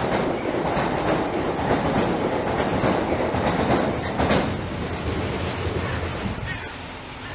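A train passing, its running noise loud and steady, then fading away over the last couple of seconds.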